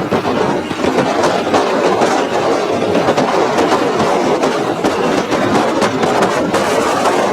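A moving road vehicle, heard steadily with rumble and a constant clatter of small rattles.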